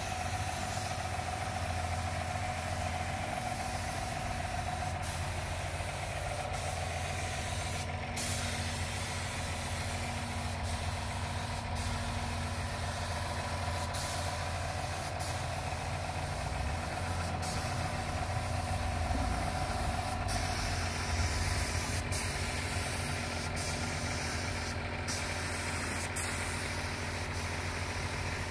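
Compressed-air spray gun hissing steadily as it sprays finish, over the constant low hum of a small tank air compressor running. The hiss drops out briefly several times.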